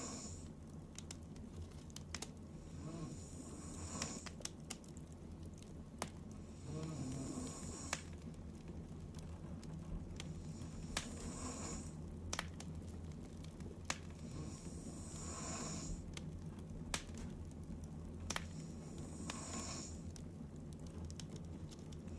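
A sleeping woman breathing slowly and heavily, a soft breathy snore swelling about every four seconds, six breaths in all. Scattered sharp clicks sound between the breaths, over a steady low hum.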